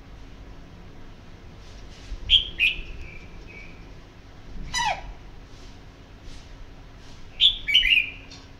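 Red-whiskered bulbul calling: a quick group of short, loud notes about two seconds in and another near the end, with a single steeply falling note in between.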